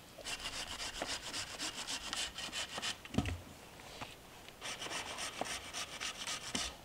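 Handsaw cutting across a thin pole laid over a log, quick back-and-forth strokes at about three or four a second, to shorten it to length. The sawing comes in two runs, broken a little after three seconds in by a single low thump.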